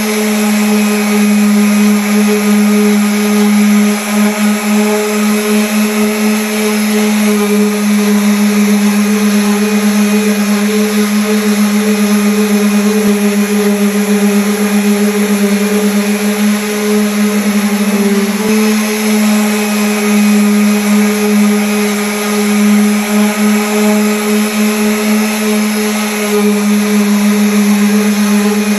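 Electric sander running against wood: a loud, steady hum with a strong low tone, its pitch dipping slightly about eighteen seconds in.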